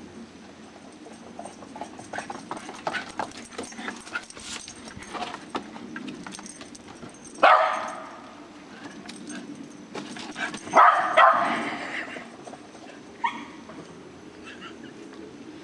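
Small dog barking excitedly: one sharp bark about halfway through, then two more in quick succession a few seconds later and a smaller yip near the end, over scattered light clicks.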